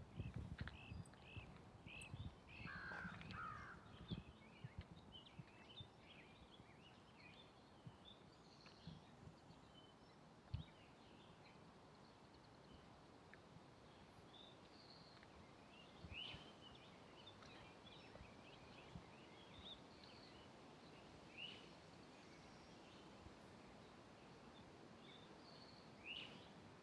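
Small woodland birds chirping and calling, with a louder, harsher call about three seconds in. Soft footfalls sound on the trail, most of them in the first few seconds.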